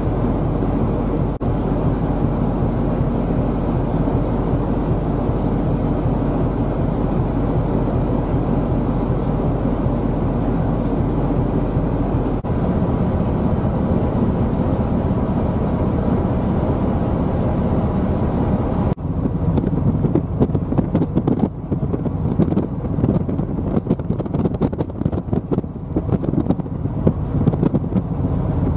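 Steady low rumble of a ship's engine, with wind buffeting the microphone; about two-thirds of the way in the sound turns gusty and fluttering as the wind noise takes over.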